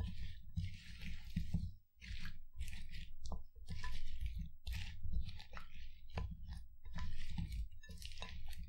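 Sliced cucumbers in an oily sesame dressing being stirred and tossed with a silicone spatula in a ceramic bowl: irregular wet squelching and slapping, with a short pause about two seconds in.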